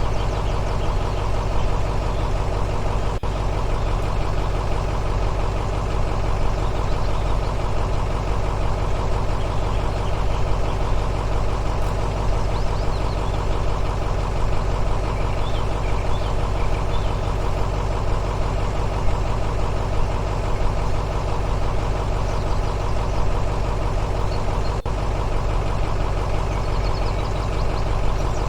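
Steady engine-like drone, as of a machine idling, holding the same pitch and level throughout.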